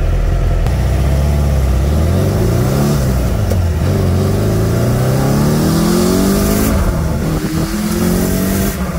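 Turbocharged air-cooled VW Beetle flat-four engine accelerating hard under load. The revs climb for about six seconds, drop briefly about seven seconds in at a gear change, then climb again.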